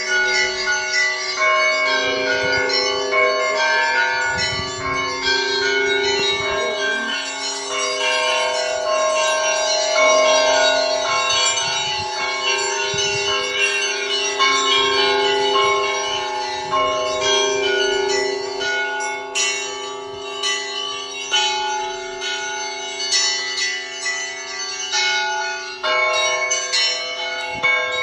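Russian Orthodox church bells ringing together: many bells of different pitches struck in a rhythmic peal, their tones ringing on over each other. The strikes of the small high bells come quicker in the second half.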